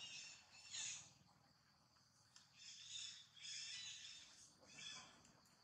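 Faint, high-pitched animal calls: one short call about a second in, then a run of several squeaky calls from the middle to near the end.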